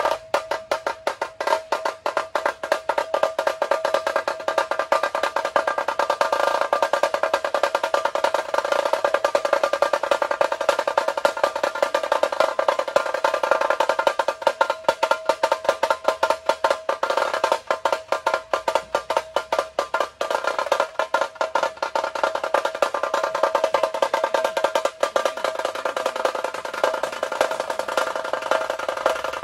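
Tashas of a dhol-tasha pathak played in fast, dense rolls: rapid, sharp stick strokes on the small drums with a steady high ring, and little deep drum sound beneath.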